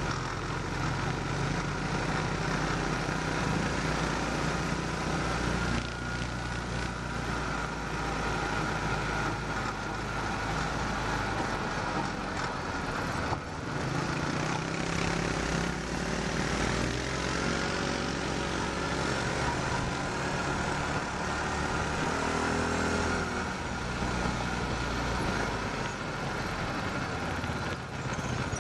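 500cc off-road buggy's single-cylinder engine running under way, its pitch rising and falling as the speed changes, over a steady rush of wind and road noise; the sound dips briefly about halfway through.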